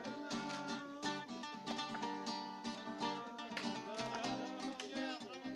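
Acoustic guitar and mandole played together, a rhythm of plucked and strummed notes with melodic lines over it.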